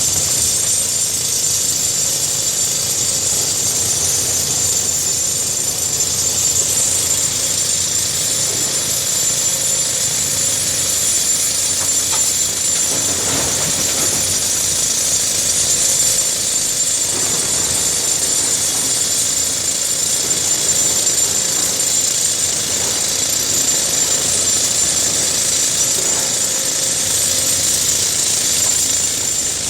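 Case hydraulic excavator running steadily at work, its engine noise overlaid with a continuous high-pitched whine.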